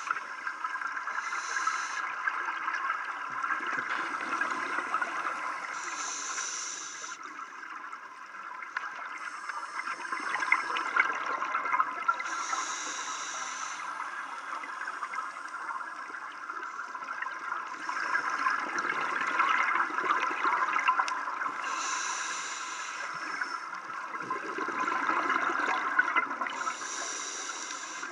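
Scuba regulator breathing heard underwater: bursts of bubble and hiss noise every few seconds over a steady watery rush.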